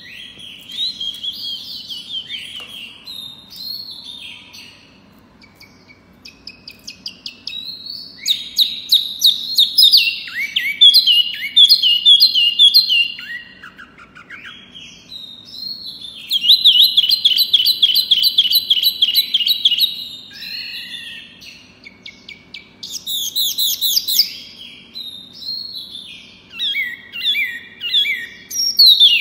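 A caged wambi mini songbird singing: fast, high-pitched chattering and trilling phrases come in loud bursts separated by quieter spells, the kind of song kept as a pancingan recording to set other birds singing.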